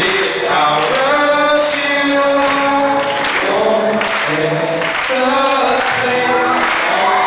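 Two boys singing live into microphones over an acoustic guitar, amplified through a PA in a hall; the singing runs without a break.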